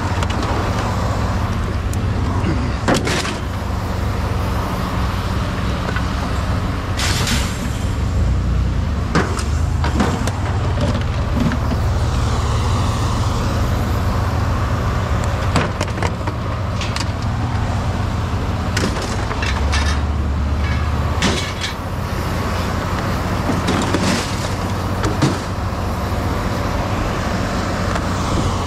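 Vehicle driving: a steady low engine drone with road noise, and short knocks and rattles every few seconds.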